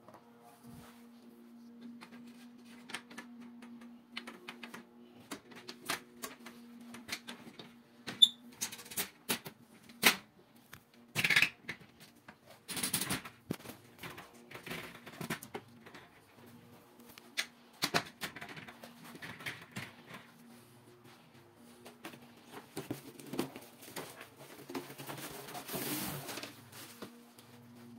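Scattered clicks, taps and sharper knocks of aluminium sliding-door rails and fittings being handled and fitted, loudest around ten to thirteen seconds in, with rustling of protective plastic film near the end.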